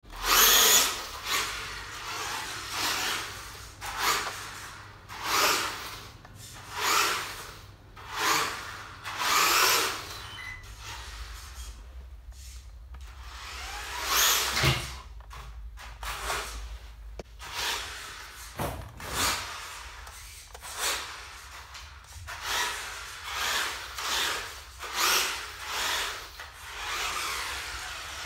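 Electric RC car powered by supercapacitors, its motor revving up and dropping back in repeated bursts about once every second or so as it drives over a stone floor.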